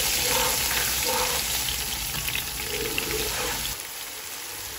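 Ginger-garlic paste sizzling loudly in hot oil with fried onions as a spatula stirs it through, falling much quieter near the end.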